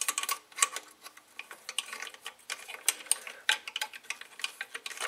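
Irregular small metal clicks and ticks of a long hex key working a bolt as it is threaded into the intake manifold of a MK4 VW Golf 2.0L.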